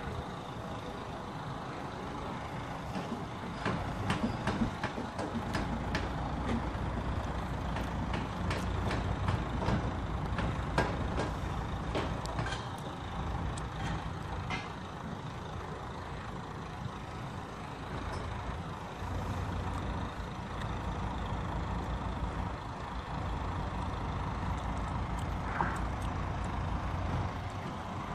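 Heavy lorry's diesel engine running steadily, with scattered clicks and knocks during the first half.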